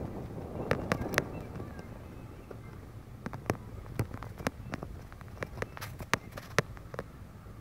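Low road rumble heard from inside a moving vehicle, with many irregular sharp clicks and ticks scattered through it.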